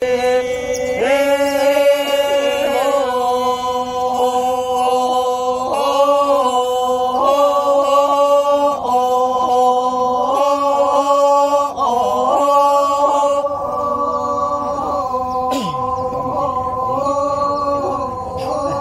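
A group of men chanting together in long held notes that step to a new pitch every second or two.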